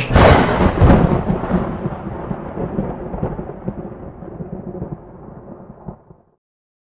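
Thunderclap sound effect closing a trailer: a sudden loud crack with a second peak about a second in, then a long rumble that fades away over about six seconds.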